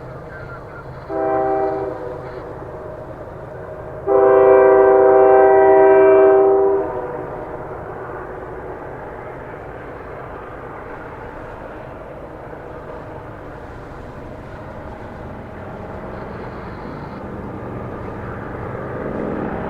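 Diesel freight locomotive's air horn sounding for a grade crossing: a short blast, then a long blast lasting about three seconds. After it comes a steady low rumble of the approaching train that slowly grows louder toward the end.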